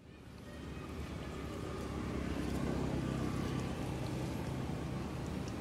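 A motor engine running, a low steady hum that grows gradually louder.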